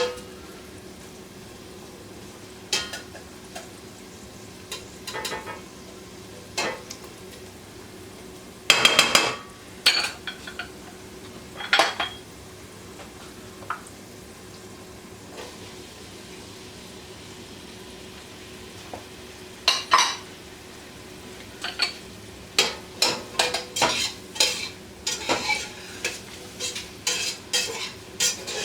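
A metal spoon knocking, clinking and scraping against a cooking pot while stirring, in scattered strokes that quicken near the end to about two a second. A steady low hum runs underneath.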